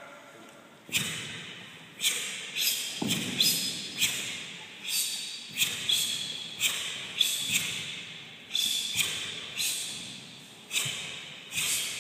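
Sharp cracks of Taekwon-Do uniforms snapping with each punch and block of two people performing ITF patterns, irregular, roughly one every half second to second, some with a dull thud of bare feet on a wooden floor, echoing in a large hall.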